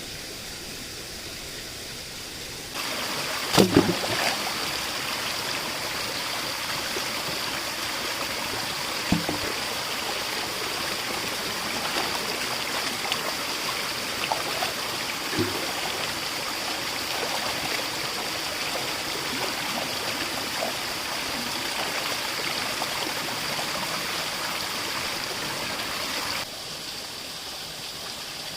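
Water flowing in a stream, with a steady high-pitched tone above it. The water steps up louder about three seconds in, with a couple of sharp knocks or splashes, and drops back quieter near the end.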